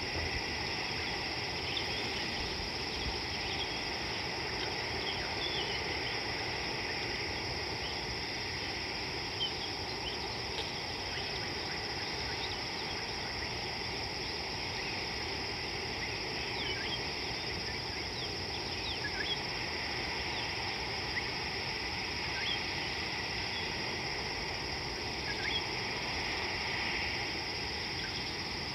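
Outdoor ambience of a steady, high insect chorus, with short bird chirps scattered throughout.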